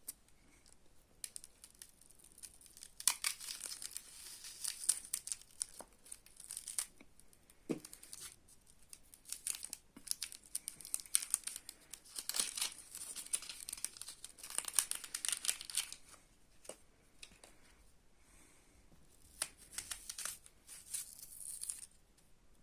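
Crinkling and tearing, as of thin material such as plastic or paper being handled and torn, in irregular crackly spells with short pauses between.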